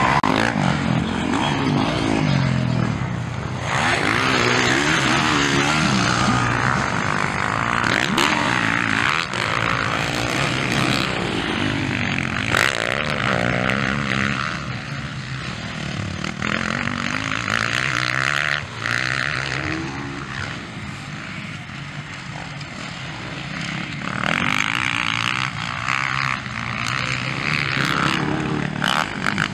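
Motocross dirt bikes racing, engines revving up and dropping back as the riders accelerate and ease off. The engine note swells and fades several times as bikes pass.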